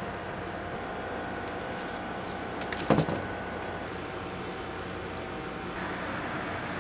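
An apple on a wooden stick being rolled in sticky candy syrup in a stainless steel saucepan, knocking against the pan in a short clatter about three seconds in, over a steady hum.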